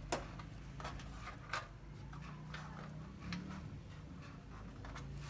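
Small irregular plastic clicks and taps as the LED backlight strip connectors are pushed together and the strips handled inside an opened LED TV, with a faint steady hum underneath.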